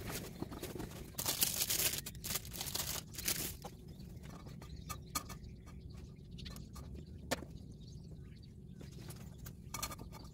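Crinkly plastic wrapper of a packaged sweet bread rustling in several loud bursts as it is opened. After that comes softer cutting, with a few light knocks of a knife against a wooden cutting board.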